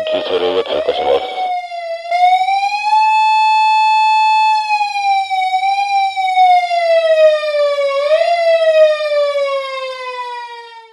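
Japanese police car siren wailing, with a voice over the car's loudspeaker in the first second and a half. Then the siren alone rises in pitch, holds steady for about two seconds, wavers, and glides steadily lower for the last few seconds before stopping.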